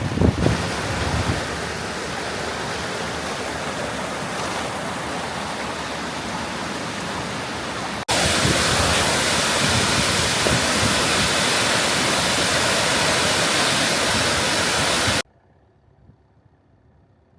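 Rushing water of a waterfall, a steady even rush, with a few low gusts of wind on the microphone at the very start. It cuts suddenly to a louder stretch of the same rush about eight seconds in, then drops abruptly to near quiet a couple of seconds before the end.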